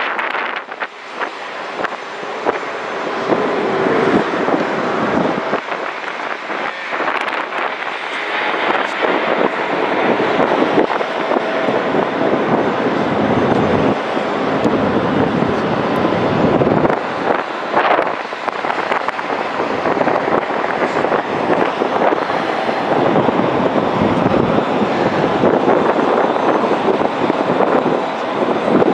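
Boeing 777-9 jet airliner's GE9X turbofan engines in flight: a loud, steady jet noise that grows louder over the first few seconds and then holds.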